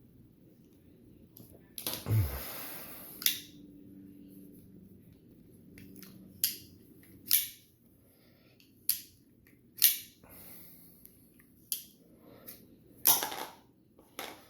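Strider .75 AR folding knife and small tools being handled while the pivot is adjusted: a string of about ten sharp metallic clicks and snaps at uneven intervals, with a longer scrape and a low thump about two seconds in.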